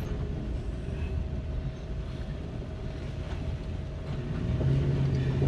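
Toyota 1UZ-FE V8 engine of a swapped 1965 Ford Zephyr running as the car moves off, heard from inside the cabin as a steady low rumble. It grows louder about four and a half seconds in as the engine pulls.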